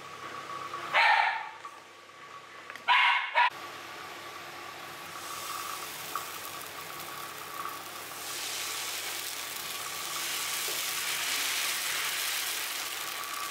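Sponge dosa batter sizzling on a hot tawa, a hiss that builds from about five seconds in and is loudest in the second half as the dosa bubbles. About a second in and again about three seconds in, two short loud yelping calls.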